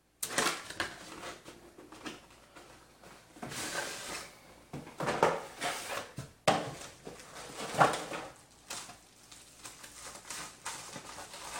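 Irregular off-camera handling noises: rustling and scraping with light clinks and knocks, the loudest knock about eight seconds in.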